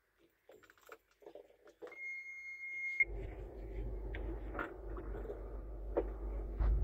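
A few light clicks, then the excavator's cab monitor sounds a single steady electronic beep lasting about a second at key-on. About three seconds in, the Cat C6.4 diesel engine of the Caterpillar 320DL starts and runs with a steady low rumble, growing louder near the end.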